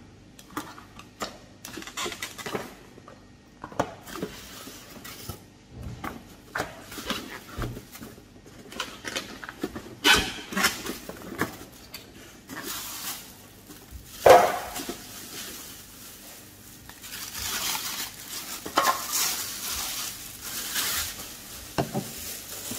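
Unpacking sounds: a plastic bag rustling and foam packing inserts and cardboard being handled, with scattered clicks and knocks, the loudest about fourteen seconds in.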